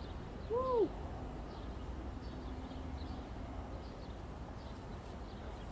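Steady outdoor background with a low rumble and faint, repeated high chirps. About half a second in comes one short call that rises and then falls in pitch.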